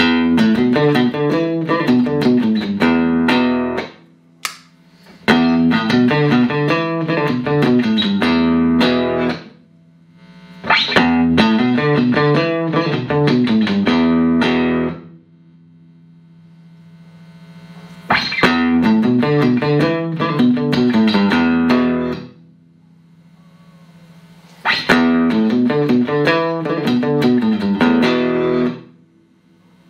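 Clean electric guitar played through Roland JC-120 amps, in short phrases of picked notes and chords about four seconds long, with brief pauses between them. In one longer gap near the middle a single low note is left ringing.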